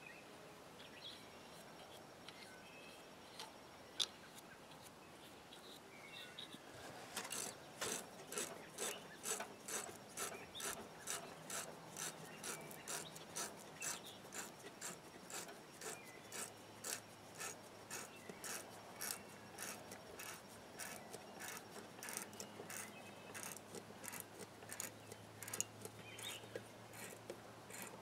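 Threaded halves of a winch-cable end fitting being screwed together by hand, one half held in locking pliers: faint metal-on-metal scraping clicks, about two a second, starting some seven seconds in.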